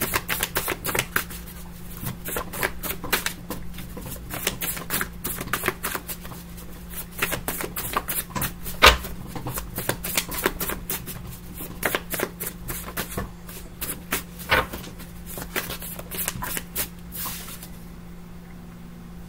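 A deck of tarot cards being shuffled by hand: a quick, irregular run of card clicks and flicks that stops about a second and a half before the end.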